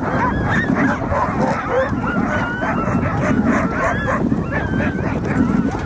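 Many sled dogs barking and yipping at once: a dense, overlapping chorus of short, high calls that keeps up without a break.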